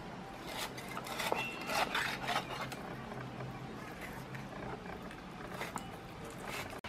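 Serrated knife sawing back and forth through raw pork on a wooden cutting board, a rasping scrape with each stroke. The strokes are strongest in the first two seconds or so and fainter after that.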